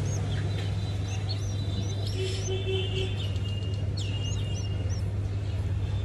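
Rescued baby birds peeping: short high chirps in runs of three or four, over a steady low hum.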